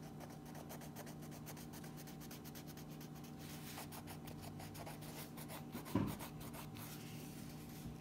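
Wax crayon scratching across a colouring-book page in quick back-and-forth strokes. A single soft thump about six seconds in.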